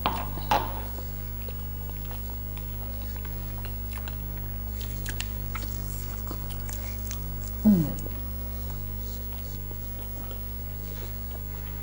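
Close-up chewing and eating sounds: soft wet clicks and smacks from mouths at work on food, over a steady low hum. There is one short falling vocal sound just before 8 seconds.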